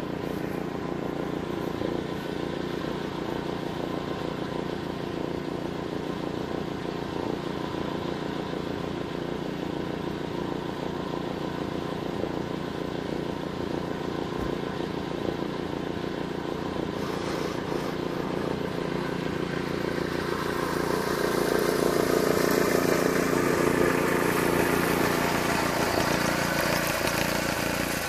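Pickup truck and its tow-behind mower running steadily. About twenty seconds in the sound gets louder and brighter as the truck pulls the mower off through tall grass.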